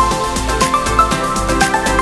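Background music with a steady electronic beat and a melody of short stepping notes.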